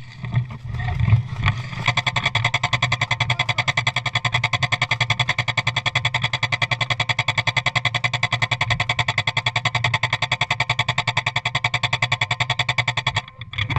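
An airsoft gun fires one long, continuous full-auto burst of rapid, evenly spaced shots, starting about two seconds in and cutting off suddenly near the end.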